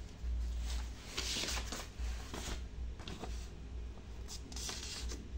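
Paper instruction sheet and clear plastic bag rustling in gloved hands, in several short crinkles over a low rumble.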